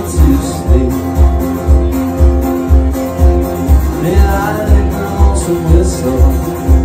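Live acoustic guitar and a man singing, amplified, over a steady low beat about twice a second.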